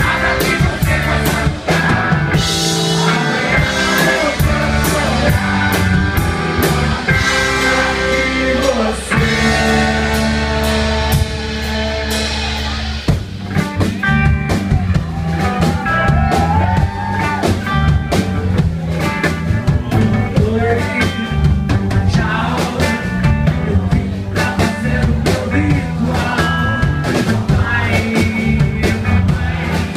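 Live rock band playing: electric guitar, bass guitar and drum kit with a man singing lead. About ten seconds in the band holds a sustained chord for a few seconds with the drums thinned out, then the beat comes back.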